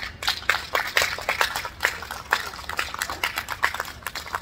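A small group of people clapping their hands, many quick, uneven claps from several pairs of hands at once.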